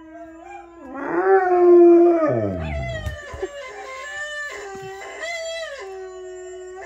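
Rottweiler howling: one loud howl about a second in that rises slightly, holds steady, then slides steeply down in pitch. After it come quieter, overlapping howls of several dogs at different pitches, played from a television.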